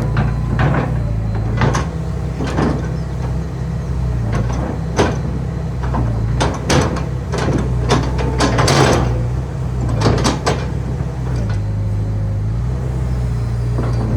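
Hitachi ZX250-5 excavator working: its diesel engine drones steadily, the pitch stepping up and down as the hydraulics take load, with repeated sharp knocks and clanks from the machine. The engine is derated and held below full speed because its exhaust filter needs a regeneration.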